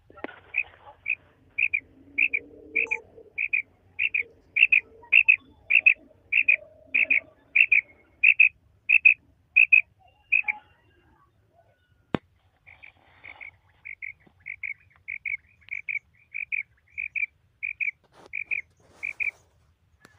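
Female common quail calling: a long series of short, evenly spaced notes, about two a second, breaking off for a couple of seconds about halfway and then starting again. A single sharp click falls in the pause.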